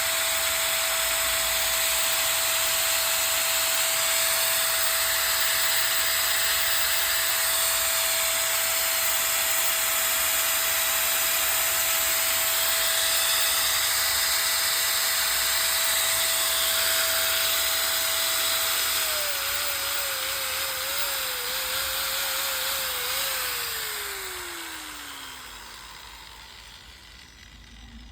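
4-inch INCO 960 W angle grinder running at a steady high whine with a loud rushing hiss. About two-thirds of the way in the pitch wavers and dips, then it is switched off and winds down, its whine falling steadily in pitch and fading.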